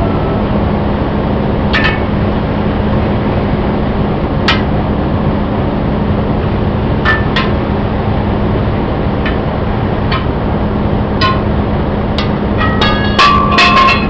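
Steel tire iron and steel truck wheel rim clanking and ringing as a truck tire is pried off the rim by hand. Scattered sharp metal knocks come every second or two, growing quicker near the end with a ringing clang, over a steady low hum.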